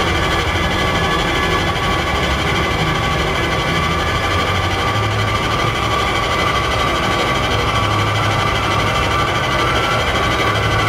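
Steady, dense engine-like drone with a low hum and a few held higher tones that do not change, part of the sound score of a contemporary dance piece.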